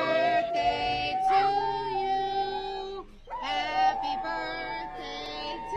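Pit bull-type dog howling along with people singing: two long howls, the first slowly rising in pitch, then a brief break about three seconds in before the second.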